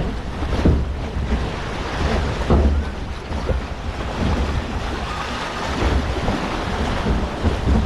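Log flume boat riding through its water channel: rushing, splashing flume water with wind buffeting the action-camera microphone in irregular low gusts.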